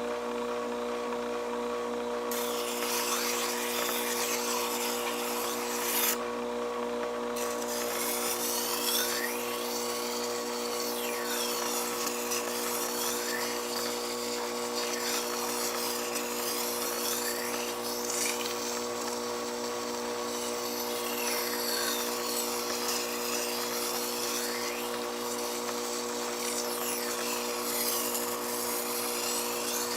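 SDG-150H vertical water-cooled knife sharpener running with a steady motor hum. From about two seconds in, a blade is ground against the turning whetstone with a rasping scrape in repeated strokes, stopping briefly around six seconds in.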